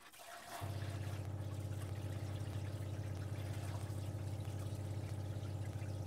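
Motorhome water pump starting about half a second in and running steadily with a low hum, as water runs from a shower head lying in the shower tray while the line is primed of air.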